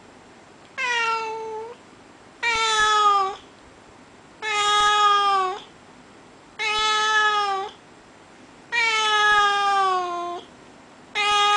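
Russian Blue cat meowing over and over, six drawn-out meows about two seconds apart, each falling a little in pitch: the cat is asking to be let outside.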